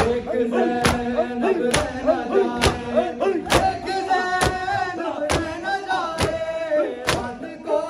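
Matam: a crowd of mourners beating their chests in unison, one sharp slap about every 0.9 seconds, under a group of men's voices singing a noha melody.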